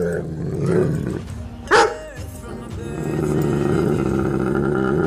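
Doberman vocalising: a single sharp bark about two seconds in, then a long drawn-out howl.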